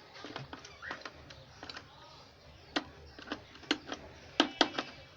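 Irregular sharp clicks and light knocks of hand work on a wooden bird cage while its door is fixed on with screws, a handful of them closer together in the second half.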